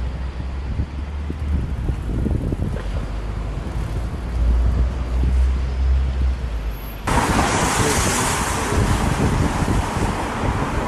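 Wind buffeting the microphone as a low rumble, switching abruptly about seven seconds in to a louder, brighter rushing hiss.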